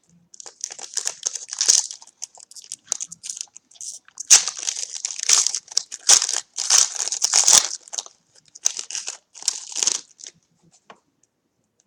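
A trading card pack's wrapper being torn open and crinkled by hand, in irregular clusters of crackly rustling that die away near the end.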